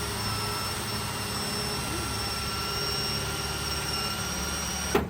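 Electric drill running steadily with a constant whine, boring into the lock cylinder of a steel toolbox; a sharp knock comes right at the end.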